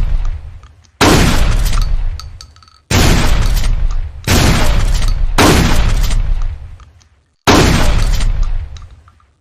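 Winchester pump-action shotgun firing five shots, one to two seconds apart, each a loud boom with an echoing tail that fades over about a second.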